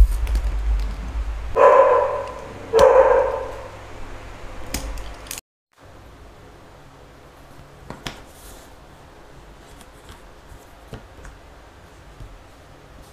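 A dog barks twice, about two and three seconds in, over a low rumble of handling. After a brief cut the rest is quiet room tone with a few faint ticks and rustles.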